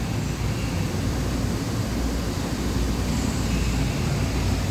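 2008 Doosan Puma 2500 LSY CNC turning center running its program dry, without coolant, at reduced speed: a steady machine hum.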